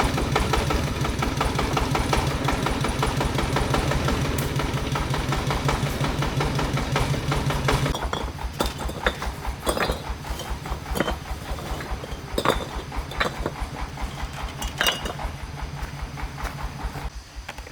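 A small engine running with an even, rapid beat. About eight seconds in it drops quieter, and sharp clinks and knocks sound over it before it fades away near the end.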